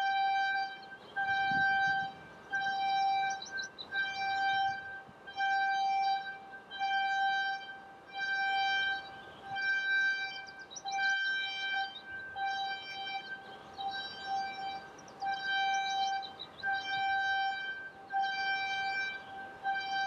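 Blast warning horn sounding a long series of short, identical high tones at one fixed pitch, about one a second: the warning signal given before a blast.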